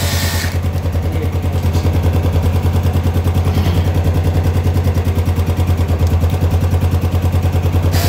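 ResQtech 12V portable tyre inflator's compressor running and pumping air into an empty motorcycle tyre, vibrating heavily as it fills, with the motorcycle's engine idling; a steady, fast, even pulsing.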